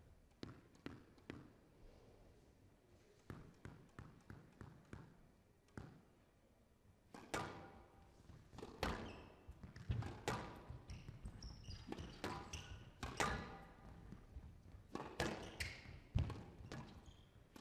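A squash rally: a rubber squash ball struck by rackets and hitting the walls of a glass court in sharp cracks and thuds. The impacts are sparse at first, then come quicker and louder from about seven seconds in, with players' shoes squeaking on the wooden floor during the fast exchanges.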